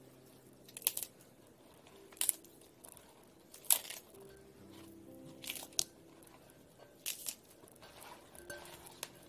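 Crisp leaves of bomdong spring cabbage snapped apart by hand while being tossed in seasoning. About eight short, sharp cracks come a second or so apart, some in quick pairs, the loudest near the middle.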